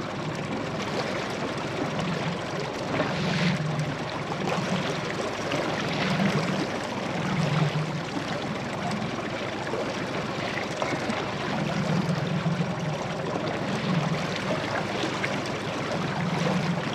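Small boat under way: steady rush and splash of water along the hull, with a low pulse swelling every second or two.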